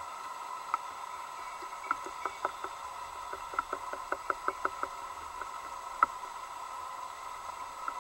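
A run of quick sharp clicks, about six a second for a few seconds, and one louder knock near the end, over a steady high hum, heard through an underwater camera housing.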